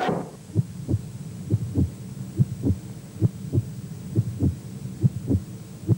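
Low double thumps in a steady heartbeat rhythm, one pair about every 0.85 s, over a faint low hum.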